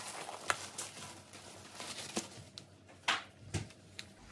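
Clear plastic bag crinkling and rustling as a folded garment is pulled out of it and unfolded, with irregular sharp crackles, the loudest about three seconds in.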